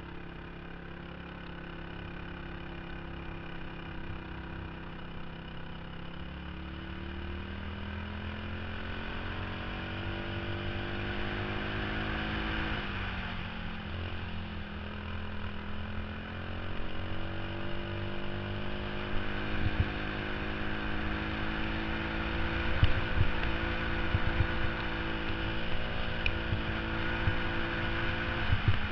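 Go-kart engine heard from on board the kart, pulling hard with its pitch climbing steadily for about twelve seconds, dropping sharply as the kart slows for a turn, then climbing again and growing louder. A few sharp knocks come through in the second half.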